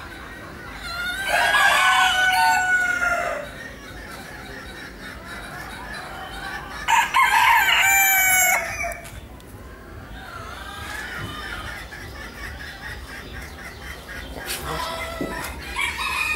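Roosters crowing: two loud crows of about two seconds each, one about a second in and another about seven seconds in, with fainter crowing and clucking from other caged fowl near the end.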